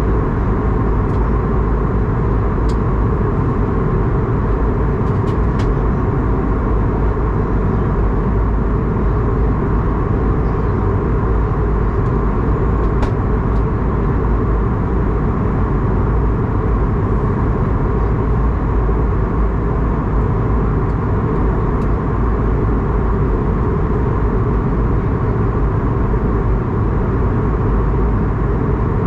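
Steady cabin noise inside an Airbus A220-300 in flight: an even, mostly low-pitched rush of airflow and its Pratt & Whitney PW1500G geared turbofan engines. A few faint clicks come through, mostly in the first six seconds and again around the middle.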